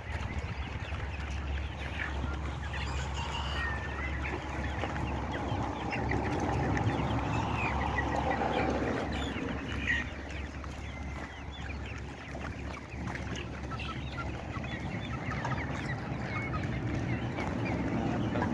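A large flock of Australorp hens clucking and calling continually, many short overlapping calls, over a low steady rumble.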